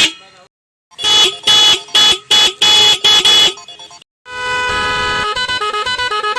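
Motorcycle electric horn sounded in a quick run of about six short, high-pitched honks. Then, a little past four seconds in, a tune of quickly stepping notes starts.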